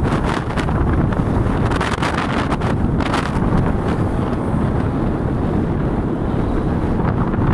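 Wind buffeting the microphone: a loud, steady rumbling rush with brief gusty crackles.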